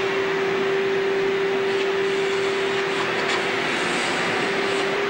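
Steady drone of large-workshop machinery: an even rush of noise with a constant hum held at one pitch.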